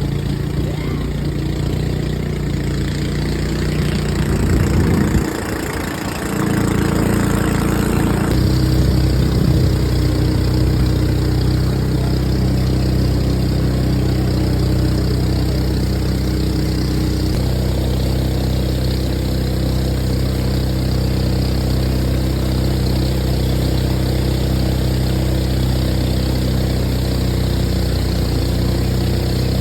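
Engine of a motorised river boat running steadily; about five seconds in its speed drops briefly, then it picks up and runs on steadily a little louder.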